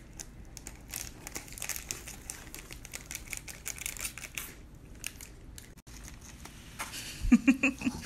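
Foil sauce sachet crinkling and rustling as a child handles and empties it into a paper cup, in scattered crisp bursts. Near the end, a short burst of voice, louder than the rustling.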